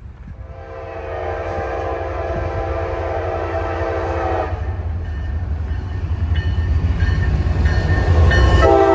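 Train horn sounding a long chord of several steady notes for about four seconds, then a second blast starting near the end, over a low rumble that grows louder.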